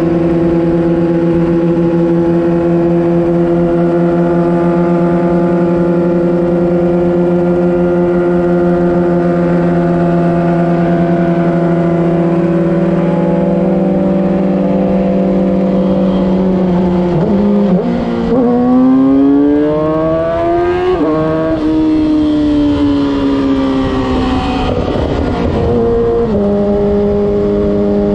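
Sport motorcycle engine heard from on board while riding: it holds a steady cruise for about sixteen seconds, then the revs climb hard for a few seconds, drop sharply at a gear change, fall away as the throttle eases, and settle back to a steady cruise near the end.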